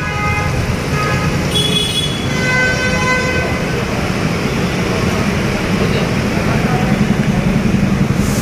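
Busy road traffic: vehicle engines running with a dense rumble, and horns honking in the first three seconds. A low engine rumble grows a little louder near the end.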